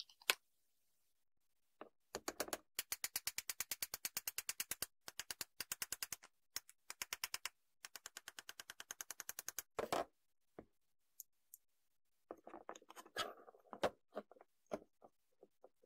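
Ratchet wrench clicking rapidly in several long runs, about ten clicks a second, as it turns a bolt on the power mixer's aluminium gear housing. Near the end, scraping and a few knocks as the motor housing is worked off the gear case.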